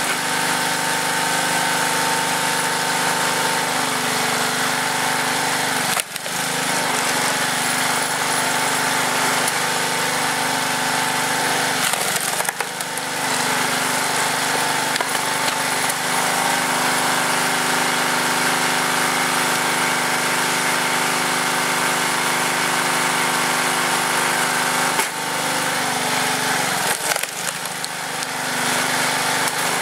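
Tecumseh small engine running steadily, driving the hydraulic pump of a log splitter. A few sharp cracks and knocks break in, about four times, as wood rounds split and are handled on the beam.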